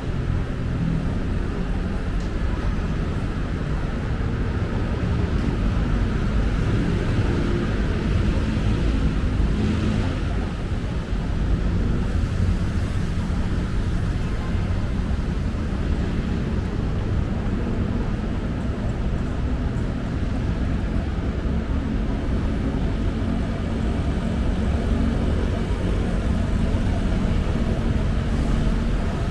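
Steady road traffic: vehicle engines running and passing in a continuous low rumble.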